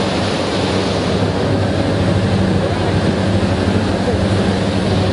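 Large radiator cooling fans running: a steady, loud rush of air over a low, even hum.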